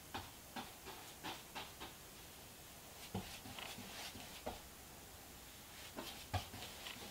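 Faint paintbrush strokes against a wall panel: short, soft scratchy swipes in three bunches, with a small knock about six seconds in.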